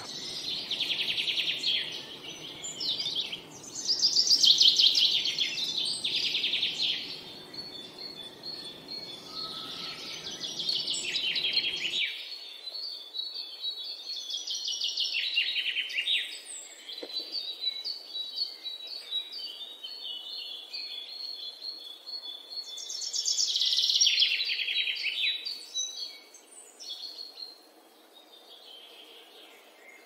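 Small songbirds singing and chirping: several fast trilled phrases a few seconds apart, a run of thin high chirps in the middle, and another loud trill near the end. A faint low background noise beneath stops abruptly about twelve seconds in.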